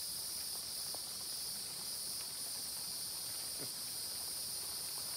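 Steady chorus of night insects trilling in several high, unbroken bands.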